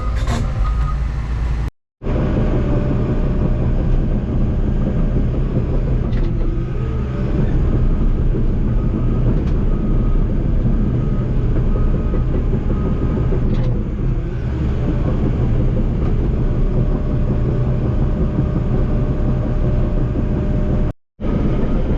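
Diesel engine of a tracked heavy machine working steadily under load, with a faint backup alarm beeping intermittently in the middle. The sound cuts out briefly twice.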